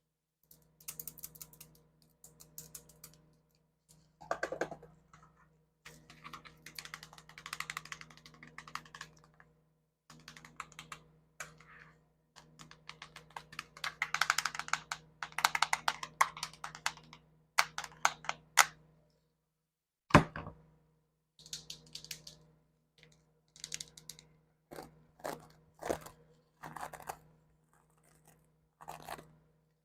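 ASMR fingernail tapping: bursts of rapid, light clicks like typing, with a single louder knock about twenty seconds in.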